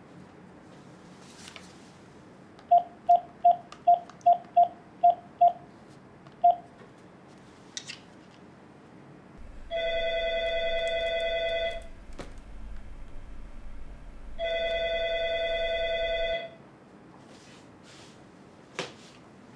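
Phone keypad beeps as a number is keyed in: eight quick beeps and then one more. After that a telephone rings twice, each ring about two seconds long, as the call goes through.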